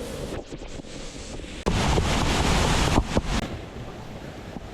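Waterfall rushing, with wind buffeting the microphone in a louder gust from a little under two seconds in until past three seconds.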